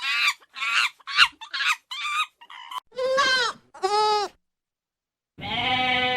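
Farm animal bleating: a quick run of short, high calls, then two bleats of about half a second each, and a longer bleat starting near the end.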